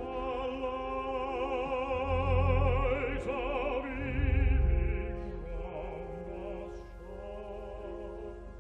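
Choral anthem with organ: high voices sing a line with wide vibrato over sustained organ chords, with two deep bass swells. About five seconds in the singing thins out, leaving the held organ chords.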